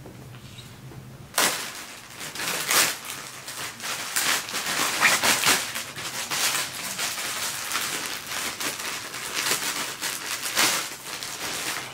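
Plastic packaging crinkling and rustling as it is handled and opened, a dense run of crackles that starts about a second and a half in.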